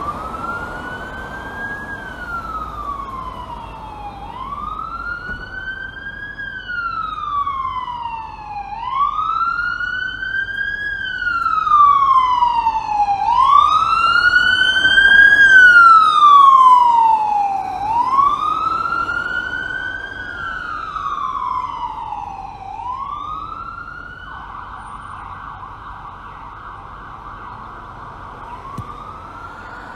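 Ambulance siren on a slow wail, its pitch rising and falling about every four and a half seconds. It grows louder to a peak in the middle and then fades as it passes. Near the end it switches briefly to a fast warble before one more rise.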